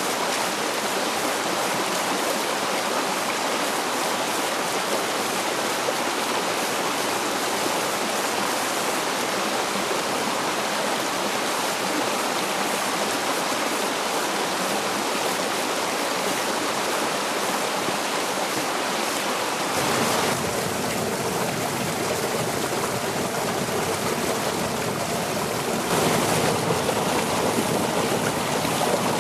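Shallow rocky stream running over and between stones: a steady babble of flowing water. Its tone shifts about twenty seconds in and again a few seconds later.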